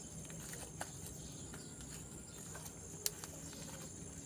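Steady high-pitched chirring of insects, with a few faint clicks and one sharp click about three seconds in.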